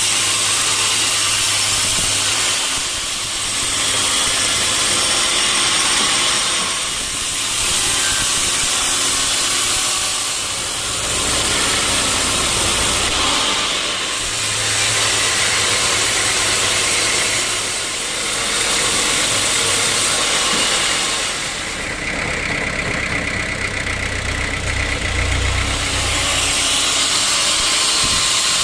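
Sawmill band saw running steadily with its motor humming, the loudness swelling and dipping every few seconds.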